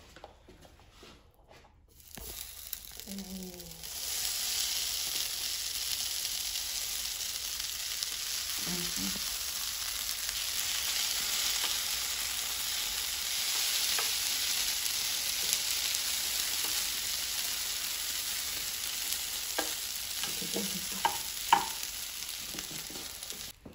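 Cooked ramen noodles sizzling on the hot plates of an open electric waffle iron: a steady hiss that builds over the first few seconds and then holds, with a few light clicks near the end.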